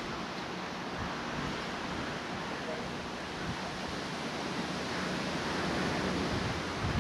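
Wind blowing, a steady rushing that grows a little louder toward the end.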